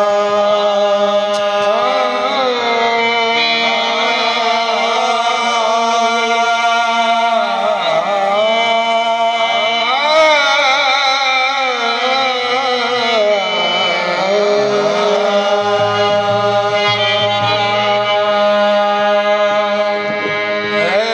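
Qawwali: two harmoniums play steady held chords under male voices singing long, ornamented lines that slide up and down in pitch.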